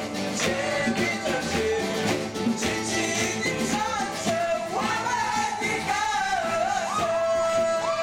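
Live group singing: several voices singing a song together over guitar accompaniment, with one long held note near the end.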